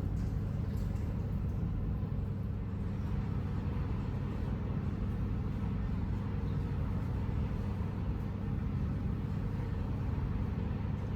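Steady low hum and rumble of a vehicle in motion, heard from inside, with no change in pitch or level.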